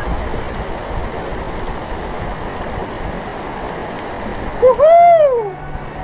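Steady noise of a rocky mountain stream running over small cascades. About five seconds in, a person's voice calls out once in a short rising-and-falling shout.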